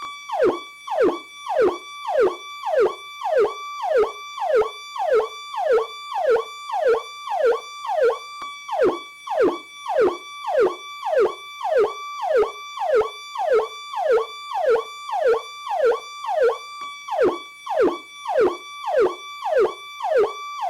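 Electronic police siren on its Powercall tone: a held high note that drops sharply in pitch and snaps back, repeating about one and a half times a second.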